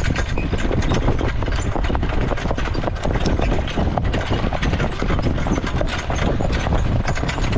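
Hoofbeats of a harness horse jogging in a jog cart, a quick run of clip-clops over a steady low rumble.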